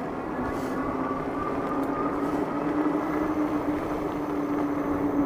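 ENGWE X26 e-bike's electric motor whining steadily under way, edging slightly up in pitch, over the rumble of its fat tyres on a bumpy path.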